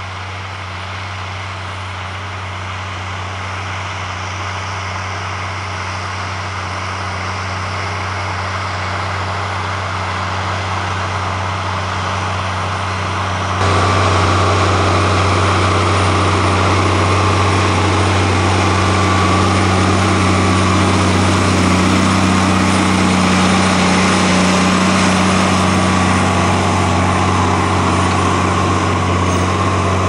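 Large farm tractor's diesel engine running steadily under load while pulling a plough, a deep even hum that swells slowly, then steps abruptly louder about fourteen seconds in.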